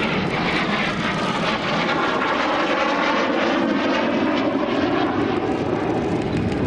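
Kawasaki T-4 jet trainer's twin turbofan engines, a steady loud roar as it flies past overhead, with a slowly sweeping, phasing tone.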